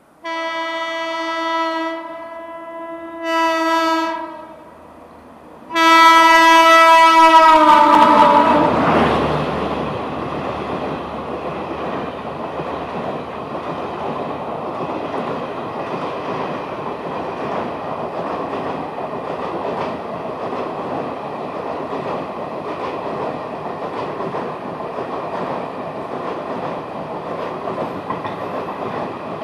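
WAP-7 electric locomotive's horn sounding three times: a blast of about two seconds, a short one, then a loud long one whose pitch drops as the locomotive passes. It is followed by the steady noise of the train's coaches rolling past.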